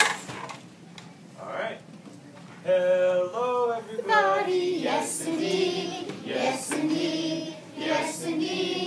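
A class of young children singing together as a group. There is a lull in the first couple of seconds before the singing comes back in, about three seconds in.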